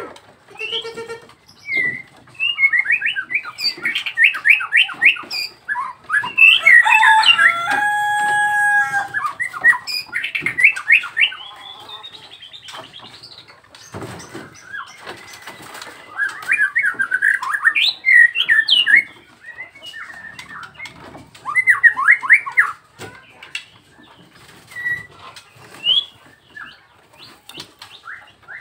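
White-rumped shama (Nias murai batu) singing: loud, varied phrases of rapid chattering notes and whistles, including a clear held whistle about eight seconds in, with a knock about fourteen seconds in.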